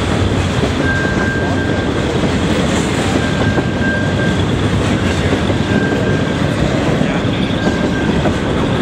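Double-stack intermodal freight cars rolling past: a steady rumble and clatter of steel wheels on the rails, with a thin high squeal that comes and goes every second or two.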